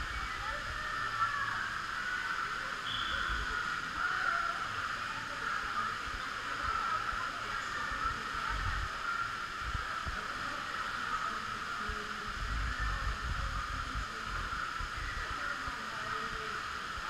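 Steady indoor waterpark ambience: a continuous wash of distant echoing voices mixed with running and splashing water.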